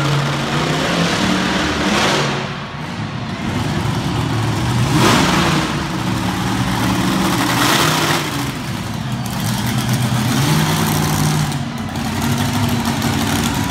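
Monster truck engine revving hard and repeatedly, its pitch climbing and dropping with each blip of the throttle, with louder surges about two, five and eight seconds in.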